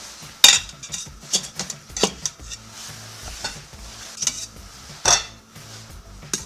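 Metal utensil clinking and scraping against the stainless steel inner pot and steamer basket of an Instant Pot as steamed vegetables are lifted out onto a plate. The sound is a series of about seven sharp clinks, the loudest about half a second in.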